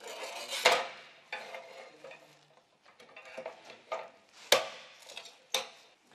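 Manual tile cutter scoring a ceramic tile: the scoring wheel scratches along the tile's face in several strokes, broken by sharp cracks and clacks of tile and metal, the loudest about half a second in and again about four and a half seconds in.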